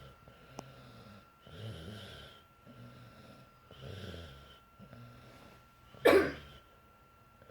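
A sleeping girl snoring in rough, rattly breaths about once a second, then one loud, sudden snort about six seconds in.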